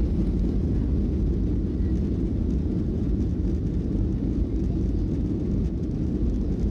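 Steady low rumble of a Boeing 737-800 jet heard inside the passenger cabin as it moves on the ground just before takeoff.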